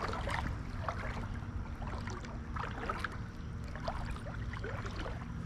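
Shallow creek water gurgling and splashing around the legs of a wading angler, over a low steady rumble.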